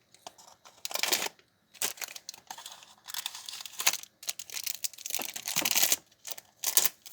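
Packaging of a gummy pack crinkling and tearing as it is opened by hand, in irregular bursts of rustling.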